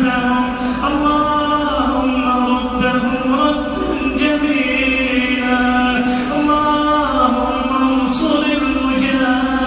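Wordless vocal chant with long held notes that glide slowly from one pitch to the next, in the manner of a background humming nasheed track.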